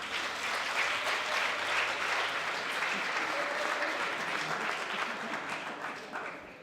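Congregation clapping, steady and dense, then tailing off near the end.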